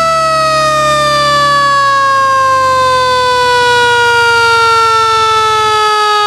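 Mechanical siren of a Honda CB750P police motorcycle, driven by a friction drum pulled against the rear wheel, giving one long wail that slides slowly down in pitch.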